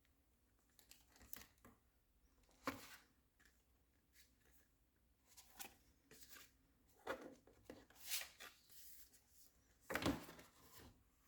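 Hands handling a motherboard's packaging: scattered short rustles and light taps, the loudest a little under a third of the way in and again near the end.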